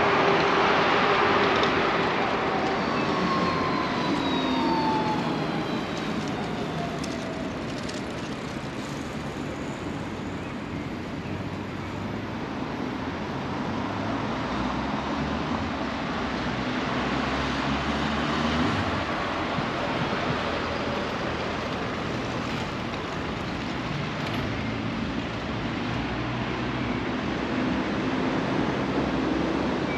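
City road traffic: a steady wash of tyre and engine noise from passing cars, loudest at the start. A few seconds in, a passing vehicle's whine falls in pitch.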